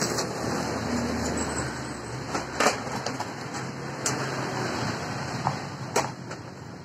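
Stick-welding arc crackling and hissing from an inverter MMA welder set to about 65 amps. The arc stops after about two and a half seconds, and a few sharp knocks follow.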